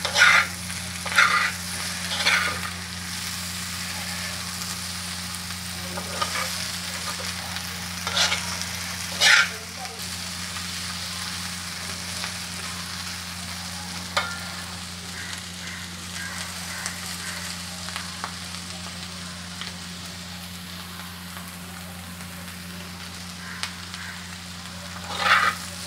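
Diced boiled potatoes with cumin seeds sizzling steadily in oil on an iron tawa as they fry to a crisp brown. A few quick scraping strokes of a slotted spatula against the pan come in the first ten seconds or so and again near the end.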